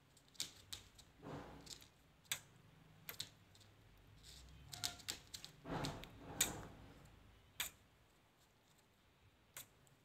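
Alexandrine parakeet biting and nibbling a piece of fruit held in the fingers: faint, irregular sharp clicks of its beak, with two longer crunching spells about a second and a half in and around six seconds in.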